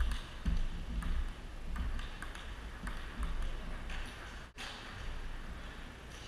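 Table tennis rally: the ball clicking off the paddles and the table in a quick, uneven rhythm, with low thuds under it.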